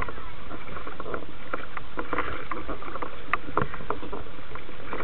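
Water lapping and slapping against a boat hull in irregular little splashes, over a steady low rumble.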